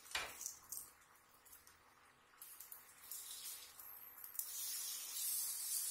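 Banana halves sizzling as they fry in ghee and sugar in a frying pan, turned with a silicone spatula; the sizzle swells a couple of seconds in and grows louder and steadier over the last second and a half. A short tap right at the start.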